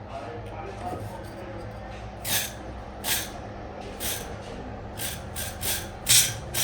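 New diesel injector nozzle being test-fired, spraying fuel in about eight short hissing bursts that come closer together near the end. The spray is clear and clean, in place of the clogged nozzle it replaces.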